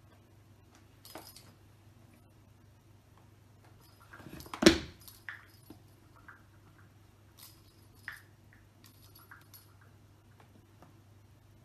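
Short bursts of jingling from the red ball toy hanging inside a sisal cat tower as a Savannah cat bats at it, with one loud thump about four and a half seconds in as the cat lands on the wooden floor.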